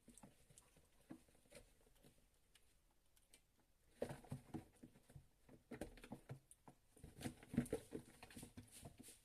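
Faint, irregular pattering, tapping and scratching of young kittens moving about and playing, sparse at first and busier from about four seconds in.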